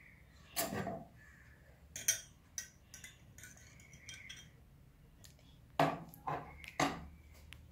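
A metal spoon stirring lemon juice in a glass tumbler, clinking against the glass in several short, irregular knocks, the loudest near the end.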